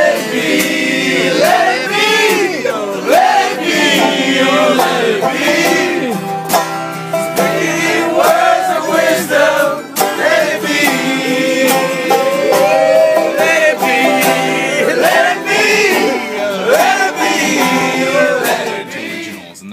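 Acoustic guitar strummed steadily with a man singing along, a loud live jam; the music cuts off near the end.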